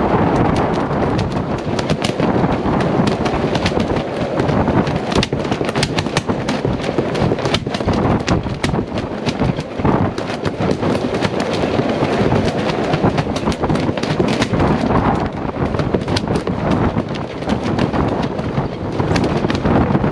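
Gale-force wind buffeting a microphone on a sailboat deck: a loud, unbroken rush with rapid crackles and snaps running through it.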